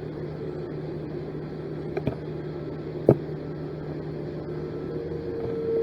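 Steady electrical hum over a low hiss, with two short clicks about two and three seconds in.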